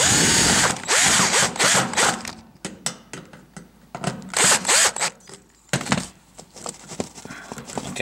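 Cordless drill/driver running in several short bursts as it drives in the screws of the power cord's strain-relief clamp on an electric range, with handling knocks between the bursts.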